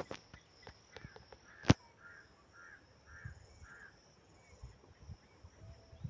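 A bird calling five times, short harsh calls about half a second apart, with a sharp click just under two seconds in.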